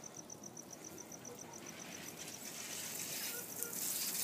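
Water starting to spray from the jet holes of white PVC AquaJet irrigation pipe as the system fills: a hiss that rises steadily through the second half. An insect chirps about six times a second through the first half.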